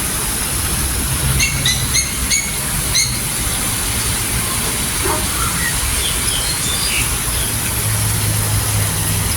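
Birds chirping: four short, quick calls about one and a half to three seconds in, then fainter calls later, over a steady low hum and a constant high-pitched hiss.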